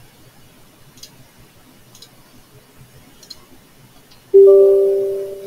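Three faint computer mouse clicks about a second apart, then a single loud computer alert chime that starts suddenly and fades away over about a second.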